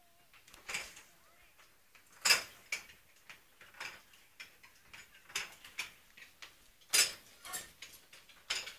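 Irregular sharp clicks and taps, about one every half second to second, the loudest about two seconds in and again about seven seconds in.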